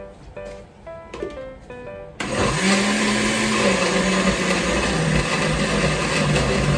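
Background music with plucked notes, then about two seconds in an electric blender switches on abruptly and runs loud, blending tomatillos with water. Its motor note sags and recovers as the load shifts.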